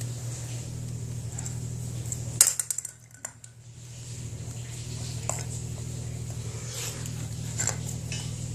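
A sharp metallic clink-and-clatter about two and a half seconds in, over a steady low hum, followed by a few light clicks.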